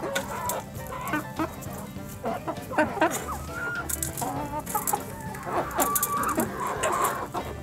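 A flock of hens clucking as they peck and crowd around food, with short pitched calls scattered throughout and a few sharp pecking taps.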